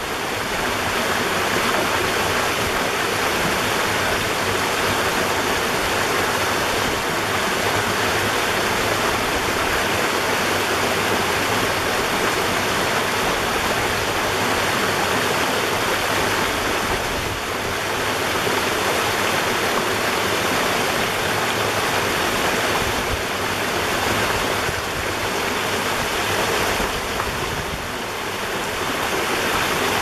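Rainwater runoff after a rainstorm trickling down a mossy rock face: a steady sound of running water.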